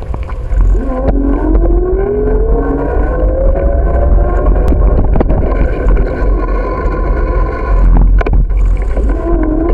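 Bicycle ride noise on a bike-mounted camera: heavy wind and road rumble with sharp knocks from bumps. A whine climbs steadily in pitch as the bike gathers speed, drops out about eight seconds in, then starts rising again near the end.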